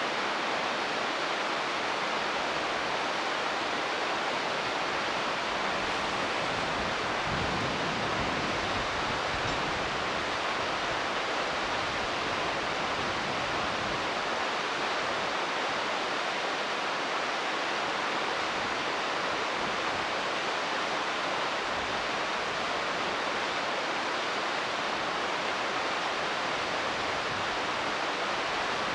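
Shallow river running over stones, a steady even rushing hiss.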